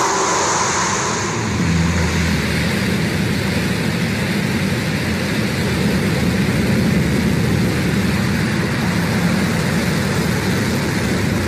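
Blue Origin New Shepard's BE-3 liquid-hydrogen rocket engine firing at liftoff, a loud, steady noise that starts abruptly and holds without a break as the rocket climbs off the pad.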